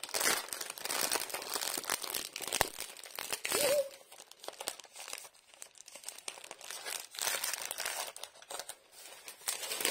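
Stiff plastic dust cover of a diamond-painting kit crinkling and rustling as it is handled and opened. The crackling is busiest in the first few seconds and lighter and sparser after that.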